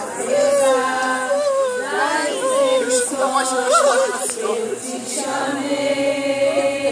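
Unaccompanied voices singing a worship song together, with one note held long near the end.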